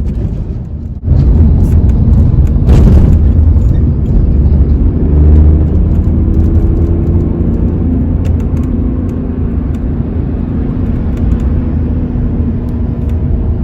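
Inside a moving Tata Nexon: loud low road and engine rumble, with a khat-khat rattle from the left rear door that keeps going, the recurring door rattle the owner says a service visit did not cure.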